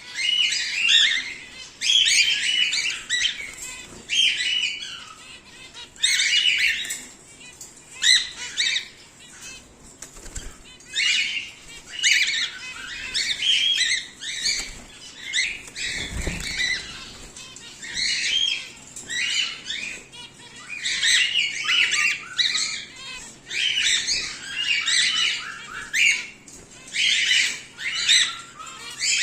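Cockatiels in an aviary calling in repeated harsh chirps, bursts coming every second or so, with wings flapping among them. A brief low thump comes about halfway through.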